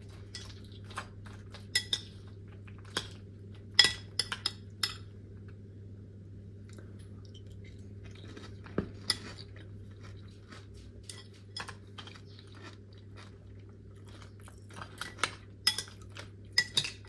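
Close-miked crunchy chewing of freeze-dried fruit in milk, with a spoon clinking against the bowl. The sharp crunches and clicks come irregularly, ease off in the middle, and bunch up again near the end, over a steady low hum.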